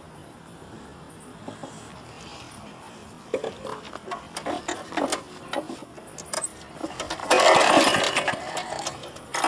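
Scattered knocks and clatter, then a loud rasping burst of about two seconds near the end: a walk-behind lawnmower's pull-start being yanked without the engine catching, because the mower is out of gas.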